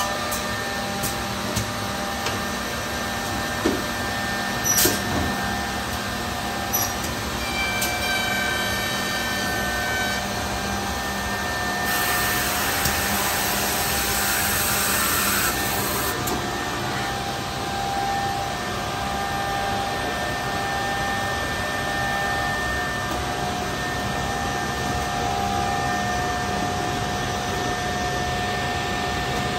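Homag Edgeteq S-240 automatic edgebander running a panel through: a steady machine hum with a few sharp clicks and knocks in the first several seconds, and a louder rushing noise for about four seconds midway.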